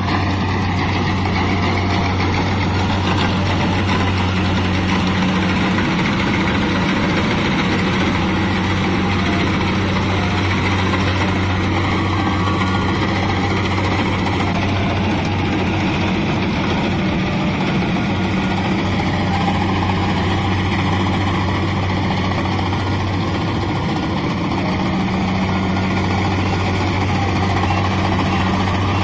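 Kubota DC-70 combine harvester's diesel engine running steadily, a loud low hum under the rushing noise of the working machine.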